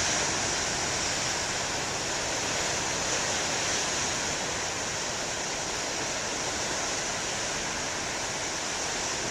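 Ocean surf breaking, a steady, unbroken wash of noise with no single distinct crash.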